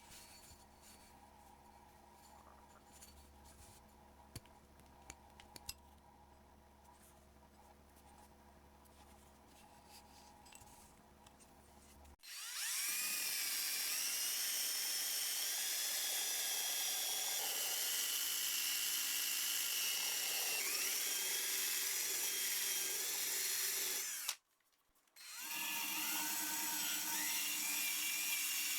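Faint hum with a few light clicks, then a small power tool starts suddenly about 12 seconds in and works the rusty metal of the wrench with a high whine that dips now and then under load. It cuts out for about a second near the end and then runs on.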